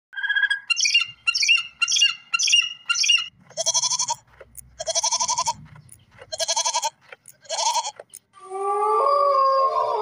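A falcon giving a run of short shrill calls, about two a second. Then goats bleat four times, each bleat a wavering note. Near the end, wolves begin howling, several long gliding notes overlapping.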